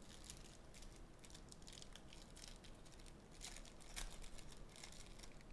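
Faint crinkling and small crackles of a foil trading-card pack wrapper being handled and worked open, with a couple of louder crackles about three and a half to four seconds in.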